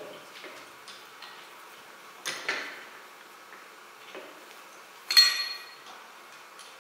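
Metal clinks and knocks of hand tools and engine parts being handled at a tractor engine block: two knocks a little over two seconds in, then a louder, ringing metallic clink about five seconds in.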